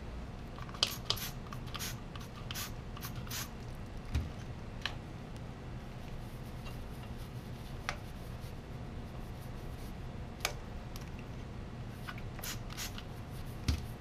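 Scattered short clicks and brief hissing scrapes over quiet room tone, in a cluster in the first few seconds and another near the end, from hand-cleaning a motorcycle's rear brake caliper and axle with a small brush and a spray bottle.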